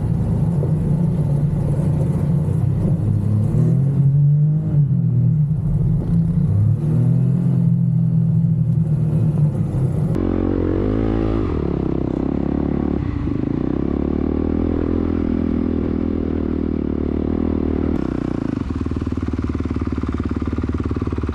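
Side-by-side UTV engine running and revving up and down as it drives across sand dunes. About halfway through the sound cuts to a steadier engine, and near the end a Honda CRF450R dirt bike engine runs at low speed.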